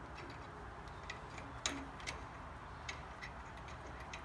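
Scattered light clicks and taps of bolts and a steel stabilizer bracket being handled and fitted under a tractor fender, irregular, a few a second, with one louder click about one and a half seconds in.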